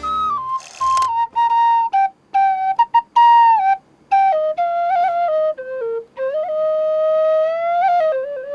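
Khlui (Thai bamboo duct flute) playing a solo melody with sliding, bending notes, a long held note that rises at its end, and a fast trill near the end.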